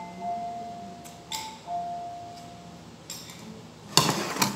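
Metal spoon clinking against a ceramic plate a couple of times, each tap leaving a short ringing tone. About four seconds in, a much louder clatter with two knocks as the plate with the spoon on it is handled and set down close to the microphone.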